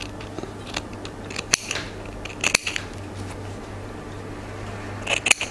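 Small sewing snips cutting away excess fabric from a buttonhole backing: a few short, crisp snips in small clusters, over a low steady hum.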